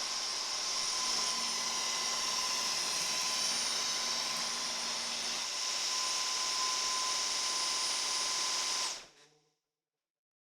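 Dyson Micro 1.5kg cordless stick vacuum running steadily, a high-pitched whirring hiss with a thin steady whine, then switched off about nine seconds in and winding down within half a second.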